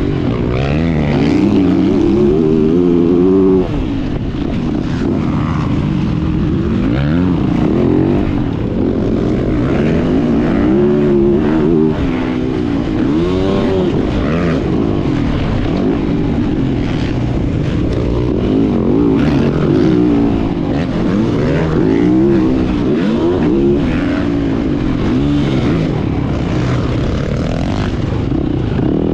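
Motocross bike engine heard up close from a camera mounted on the bike, revving up and dropping back again and again as it is ridden hard around the track.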